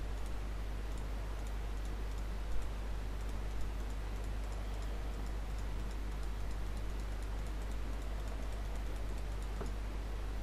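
Faint clicks of a computer mouse, two a little louder about two and a half and three and a half seconds in, over a steady low electrical hum and hiss.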